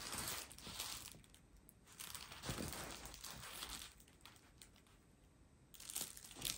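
Crinkling and rustling of a diamond painting canvas's plastic cover film as the canvas is handled and smoothed flat by hand. It comes in bursts, with a lull about four seconds in before it starts again near the end.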